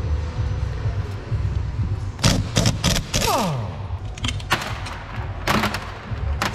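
Sharp metal clanks and knocks as the cast-aluminium housing and parts of a Toyota RAV4 transfer case are handled and set down on a steel workbench during disassembly: a quick cluster of knocks about two to three seconds in, and more around four and a half and five and a half seconds in. A short falling whine sounds around three seconds in, over a steady low workshop hum.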